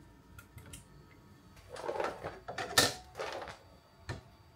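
Hand-assembly sounds on a CNC gantry: a few light clicks, then scraping and knocking as a trim router is pushed into its round metal clamp mount, with one sharp knock about halfway through and another click near the end.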